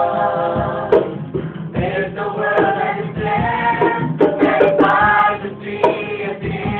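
Several voices singing a song together, holding notes for up to about a second between changes of pitch.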